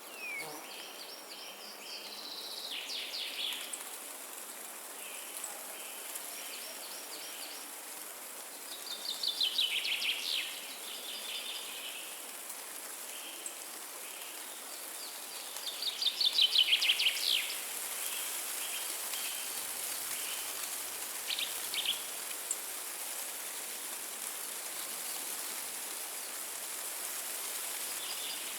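Windy forest ambience: a songbird sings a fast trilled phrase that drops in pitch, three times, with softer short chirps between, over a steady hiss of wind in the trees.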